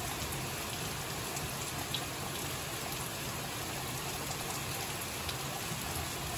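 Steady rain falling, with scattered individual drops tapping.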